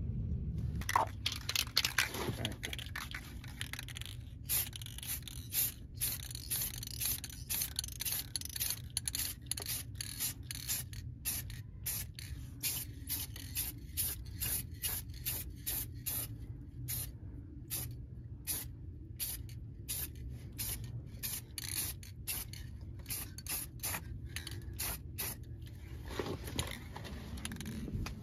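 Aerosol spray-paint can hissing in many short bursts, about two a second, as a coat is laid on a brake caliper. A brief scrape is heard in the first two seconds.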